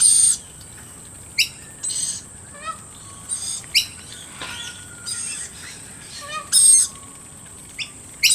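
Wild birds of a mixed flock calling: short, sharp chirps that sweep down in pitch come about once a second. A few louder, high screechy calls sound at the start and about two-thirds of the way through.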